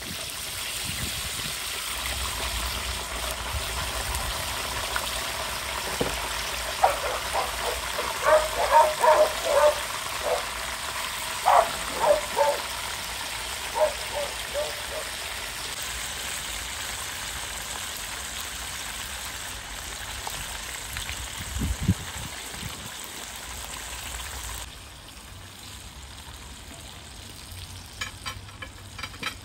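Chicken frying in a pan of hot oil, a steady sizzle that drops quieter about 25 seconds in. A run of short, pitched ticks stands out in the middle.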